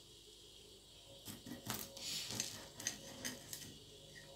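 Knife and fork clinking and scraping against a china plate while a grilled sausage is cut. Starting about a second in, a run of sharp clinks with a longer scrape in the middle.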